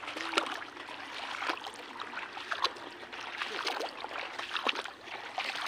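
Shallow paddy water splashing and trickling in small, irregular splashes as people wade and pull rice seedlings from the flooded field.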